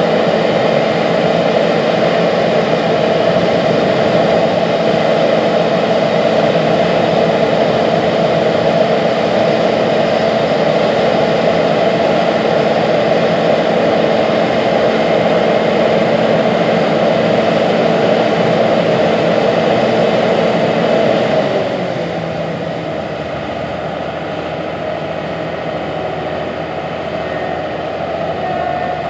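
John Deere 9500 Maximizer combine running steadily as it harvests wheat: a diesel engine and threshing machinery with a steady hum. About three quarters of the way through, the sound drops to a lower, duller level.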